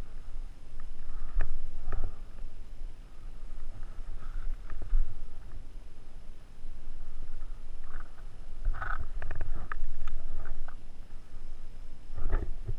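Outdoor wind rumbling on an action camera's microphone, with scattered sharp knocks and pops: a cluster about nine seconds in and another near the end.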